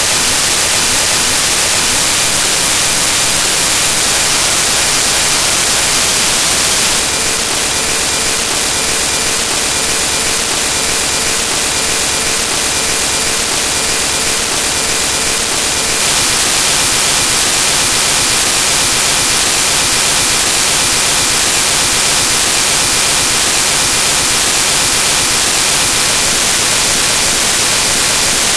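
Loud, steady static hiss from corrupted digital audio data. The hiss dips slightly in level from about seven to sixteen seconds in, with a faint steady tone under it during that stretch.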